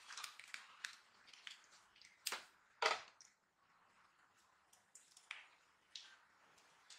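Plastic pouch crinkling and crackling as it is squeezed and worked by hand to push out sticky gulkand. The crackles come in quick short snaps, the two loudest about two and three seconds in, then fewer and fainter.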